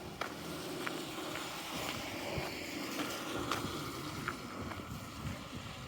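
A vehicle passes on a wet, slushy street, its tyres hissing; the sound swells in the middle and fades toward the end. A few faint footstep crunches are heard along with it.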